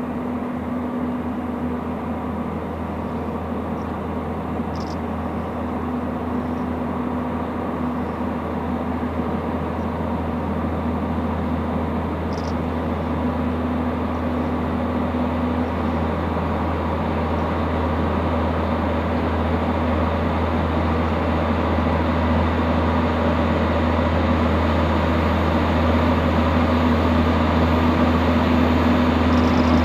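Diesel train engine running steadily with a constant low hum, growing slowly louder as it approaches.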